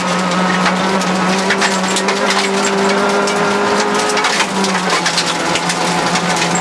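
Rally car engine running hard on a gravel stage, heard from inside the cabin, with a dense crackle of gravel and stones hitting the underbody and wheel arches. The engine note climbs slowly for a few seconds partway through.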